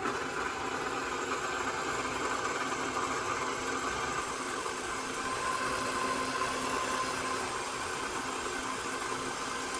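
KitchenAid bowl-lift stand mixer running steadily, its motor driving the flat beater through thick cookie dough in the stainless steel bowl.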